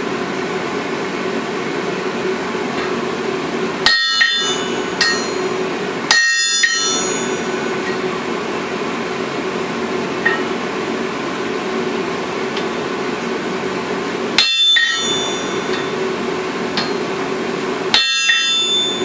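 Hammer blows on glowing hot iron on an anvil while forging, a sledgehammer and hand hammer working the piece. Four strikes ring out sharply over a steady hum.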